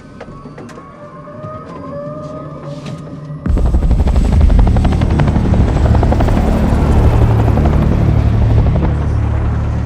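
CH-47 Chinook helicopter's rotors chopping in fast, even pulses with a deep low drone. The sound comes in suddenly, much louder, about three and a half seconds in, over a quieter start.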